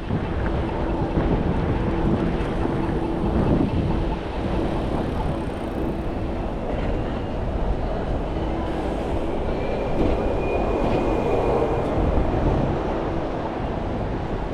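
Heavy road or rail vehicle rumbling past on a city street, with steady street traffic noise and a faint high whine about ten seconds in.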